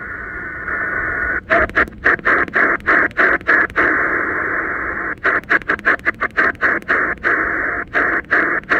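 Shortwave receiver hiss in upper sideband from a Choyong LC90 speaker, with faint FT4 digital-mode tones near the start. The hiss is then chopped by many brief dropouts as the tuning knob steps the radio up the 20-meter band.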